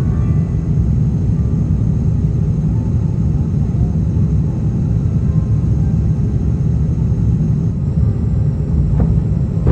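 Cabin noise of an Airbus A350-900 on approach with flaps extended: a steady low rumble of engines and airflow, with a faint high whine above it that fades out near the end.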